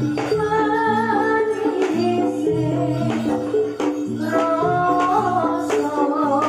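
Javanese jathilan music accompanying a barongan dance: held melodic notes stepping between pitches over steady drum and jingle strikes, with a singer's voice.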